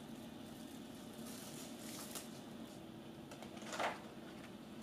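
Plastic wrap crinkling softly as it is peeled off dough-filled muffin rings, then a short, louder rustle of parchment paper being laid over them a little before four seconds in, over a steady low room hum.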